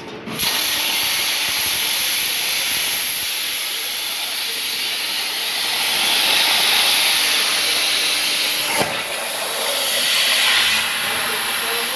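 CNC plasma cutter's arc cutting 2 mm sheet steel: a loud, steady high hiss that starts suddenly just after the start, with a short break and a click about three quarters of the way through before the hiss resumes.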